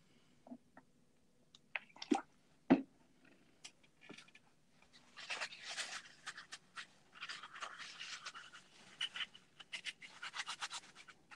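Two sharp knocks of plastic parts about two seconds in, then quick rubbing strokes on the plastic cover of a Canon ink cartridge, faster and more even near the end, as the cover is worked flat for an airtight glue bond.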